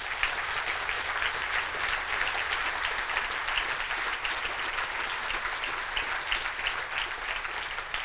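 Audience applauding: a sustained, steady round of clapping from a seated crowd.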